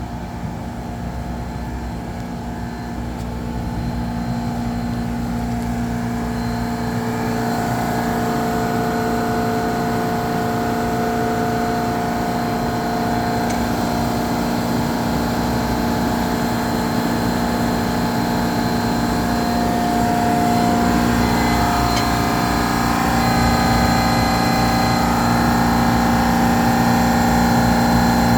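15-horsepower semi-hermetic refrigeration compressor unit running, a steady machine hum with several steady tones over it, getting louder a few seconds in and again later on.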